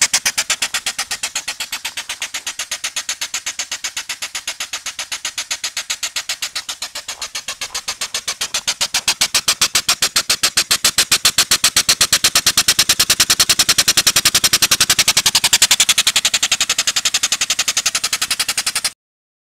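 Small two-stroke gas engine converted to run on steam, with no valves and steam fed in through the spark plug hole, running fast: a rapid, even beat of steam puffs. It gets louder about nine seconds in and cuts off suddenly near the end.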